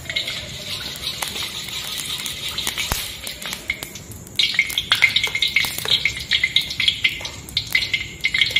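Steady sizzle of oil heating in a wok, with a metal spatula scraping and tapping against the pan; the scraping grows busier and louder about four seconds in.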